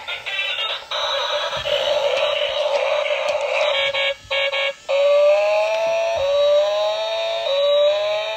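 Electronic sound effects from a light-up toy dinosaur car's small built-in speaker, thin and tinny. A moment of jingly music gives way to about three seconds of harsh noise, then three rising siren-like sweeps from about five seconds in.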